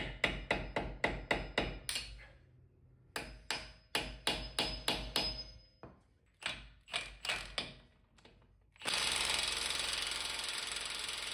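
Hammer tapping a screwdriver against the staked collar of a CV axle nut to bend its locking tab out of the axle's slot: three quick runs of sharp metal strikes, about four a second. About nine seconds in, a cordless impact wrench starts and runs steadily on the 32 mm axle nut.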